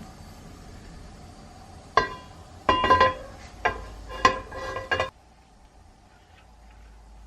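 Tableware clinking several times over about three seconds, each knock ringing briefly; the sound stops abruptly a little after five seconds in.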